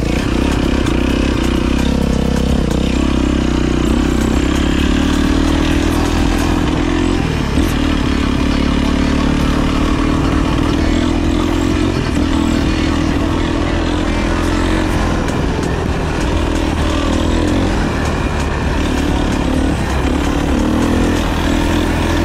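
Dirt bike engine running steadily under way, its pitch rising and falling gently with the throttle.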